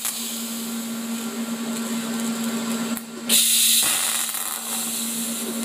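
TIG welder tacking the header pipe of a two-stroke expansion chamber: a steady electric arc hiss that dips and then comes back louder and brighter about three seconds in, over a constant low hum.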